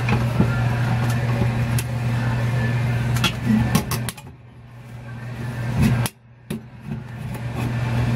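A steady low hum with light clicks and taps of metal as the evaporator coil is pressed into its bracket. The hum falls away for about a second about four seconds in, and again briefly about six seconds in.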